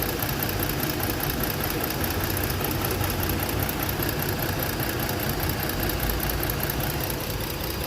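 Ford Explorer engine idling steadily with a misfire. The coil being tested gets its supply but fires no spark, a fault the mechanic puts down to the igniter module or the wiring harness.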